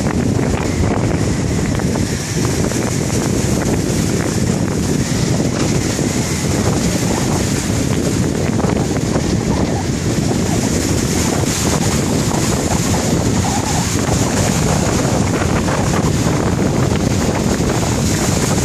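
Baltic Sea surf breaking and washing over a shore of large boulders, with strong wind buffeting the microphone in a steady low rumble.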